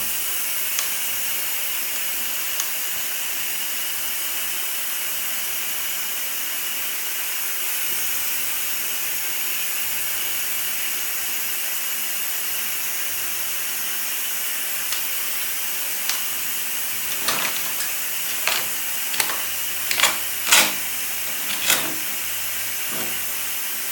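Steady air hiss from the UV spot-repair packer's vacuum line, drawing the packer bladder down small so it can be pulled out of the 2-inch pipe. In the last several seconds a run of short scrapes and squeaks as the packer is drawn back out through the pipe.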